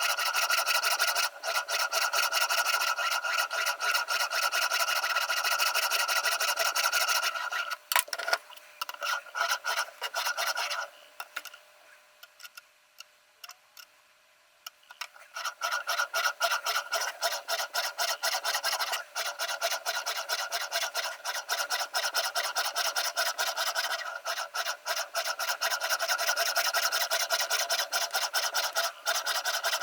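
Abrasive stone of a Ruixin Pro RX-008 guided-angle sharpener scraping rapidly back and forth along the steel edge of a VG10 Damascus chef knife. The strokes thin out about a third of the way in, stop for a few seconds, then resume at a steady rapid pace.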